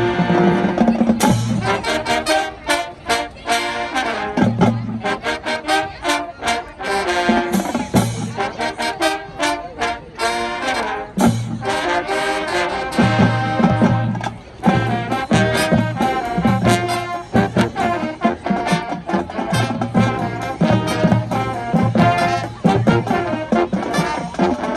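High school marching band playing: a full brass section sounding held chords over sharp drum-line hits.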